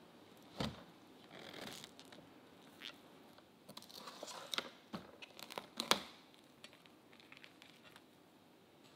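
Plastic cling film being pulled from the roll, torn off and pressed down by hand, crinkling and crackling with several sharp snaps, loudest about six seconds in. A soft knock comes about half a second in.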